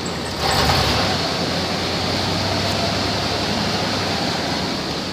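1999 GMC Sonoma pickup running in drive with its wheels spinning freely off the ground: a steady engine and driveline drone that gets louder about half a second in.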